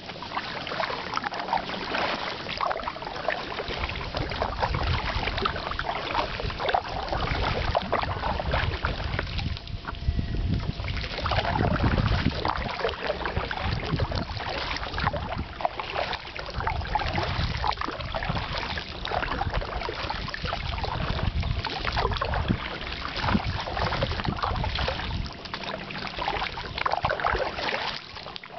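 Kayak paddles dipping and splashing in river water: a steady run of small splashes and drips, with wind rumbling on the microphone at times.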